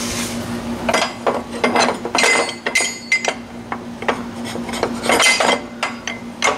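Square metal tube being shifted and seated in a metal V-block in a chop-saw vise: a run of irregular metal clinks and knocks.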